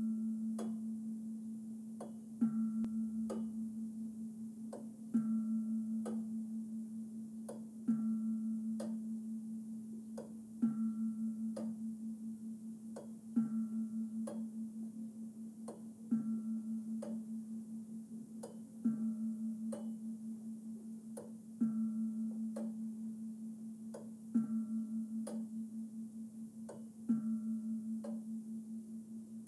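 A cylindrical turret clock bell struck ten times at an even pace, about once every 2.7 seconds, each strike leaving a low ringing hum that pulses slightly as it fades until the next. Faint ticks of the clock movement come between the strikes.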